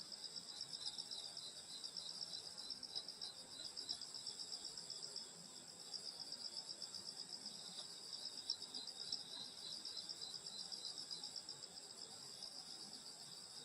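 Crickets and other grass insects chirping in a dense, steady chorus of fast pulsing trills at several pitches.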